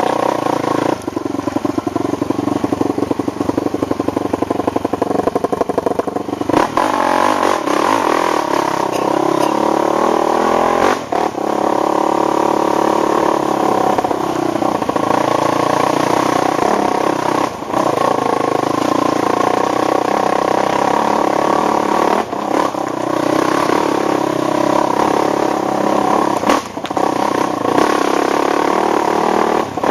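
ATV engine running under way, its pitch rising and falling with the throttle, with short drops in revs every few seconds.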